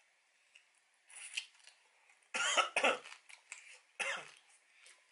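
A man coughing: two sharp coughs in quick succession a little past two seconds in, then a shorter cough or throat clearing about four seconds in, with soft mouth noises from eating before them.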